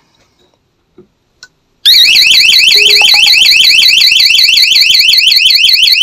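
Electronic alarm siren going off, set off by a magnetic door contact being pulled open: a loud, rapid up-and-down warble that starts suddenly about two seconds in, after a couple of faint clicks.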